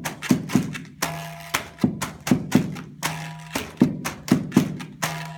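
A found-sound percussion ensemble plays a steady interlocking rhythm on everyday objects: sharp knocks of a stick on a cardboard box and other taps, with a short crinkle and a brief buzzing tone repeating about every second and a half.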